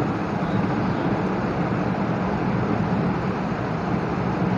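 Steady background hum and hiss with no distinct events, from a running fan or machine in the room.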